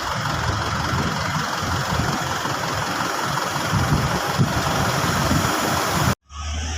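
Bus engine running close by, an uneven low rumble with no horn sounded. About six seconds in, the sound cuts off sharply at an edit, and a steady low hum follows.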